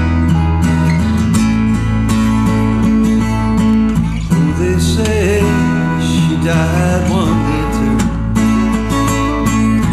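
Country-style band music: strummed acoustic guitars over a steady bass line, with a wavering lead melody line through the middle.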